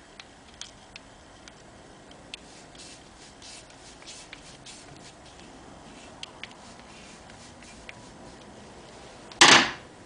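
Faint, scattered small metal clicks and scrapes of a screwdriver turning a screw through a motorcycle choke lever assembly. Near the end, a single loud, short rush of noise.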